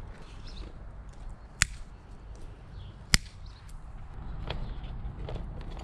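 Two sharp clicks about a second and a half apart, from hands-on work on a motorcycle's wiring, against a low steady background hum.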